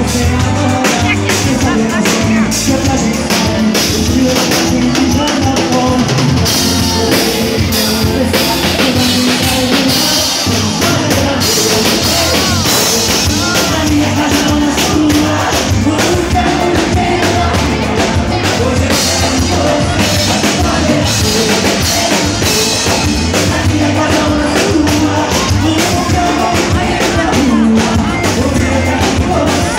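Live band music with a male singer singing into a handheld microphone over a steady drum-kit beat.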